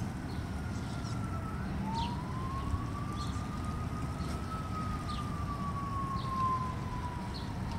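Distant siren wailing slowly: its pitch dips and breaks off about 2 seconds in, rises again, then falls gradually. A steady low background noise runs underneath, with a few faint short high chirps.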